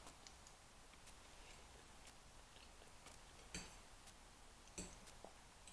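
Near silence: room tone with a few faint ticks and clicks, the loudest about three and a half seconds in.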